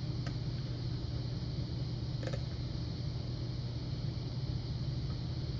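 Steady low background hum with a few faint metallic ticks of a lock pick working the pin stack of a Yale Punisher lock under tension, the clearest a little past two seconds in.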